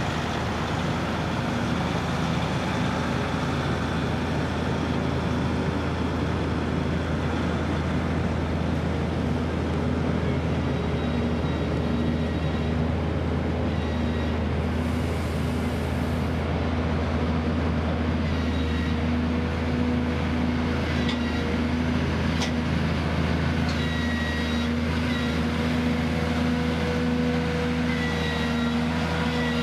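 Caterpillar diesel engines of a slow-moving multi-axle heavy-haul rig, with one Cat in the tractor and one in the rear booster unit, running at a steady drone as the rig passes. A few short high-pitched squeaks come in the second half.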